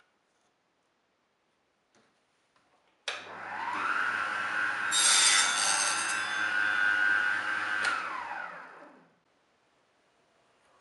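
Small benchtop table saw switched on, its motor whining up to speed. The blade rips a thin wooden strip for about a second, then the saw is switched off and its whine falls away as it winds down.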